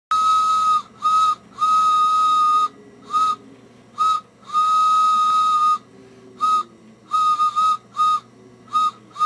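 A single steady high whistle tone sounded in a string of long and short blasts, like a signal pattern.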